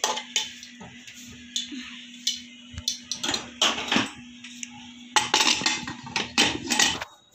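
Steel kitchenware clinking and scraping: a serving spoon knocking against steel plates and pots as rice and dal are dished out, in a string of irregular clanks. A steady low hum runs underneath.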